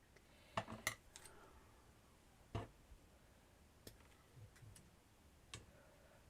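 A few light, scattered clicks and taps from small craft pieces and tools being cut and handled, over near silence.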